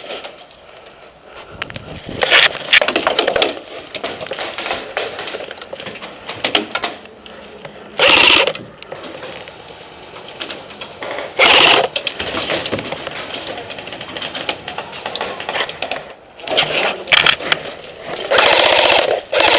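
Airsoft guns firing short rattling full-auto bursts, three loudest near 8 s, 11.5 s and 18 s in, with scattered clicks and knocks between.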